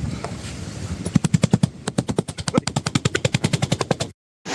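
A fast, even rattle of sharp knocks, about a dozen a second, lasting about three seconds and then cutting off abruptly.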